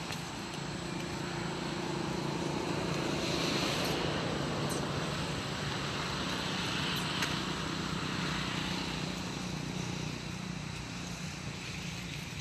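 A steady low engine hum, easing off near the end.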